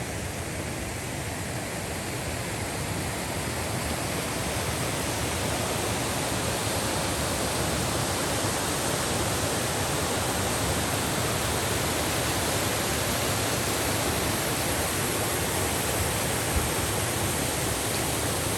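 Steady rushing water, an even noise with no pitch, growing slightly louder over the first few seconds. A single faint tap comes about sixteen seconds in.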